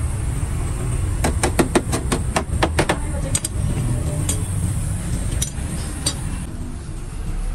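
A quick run of about ten sharp taps or knocks, roughly five a second, then a few scattered single taps, over a steady low rumble.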